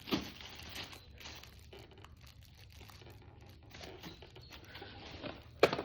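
Packaging from a motorcycle helmet box rustling and crinkling as it is handled, with a sharp knock near the end.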